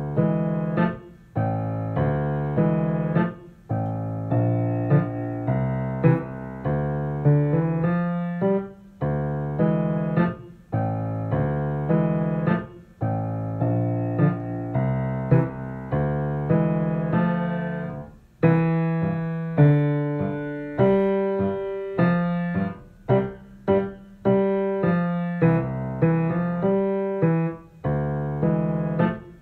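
Piano playing a duet accompaniment part: full chords over low bass notes in steady phrases of about two seconds, each with a short break. About two-thirds of the way through it changes to shorter, detached chords.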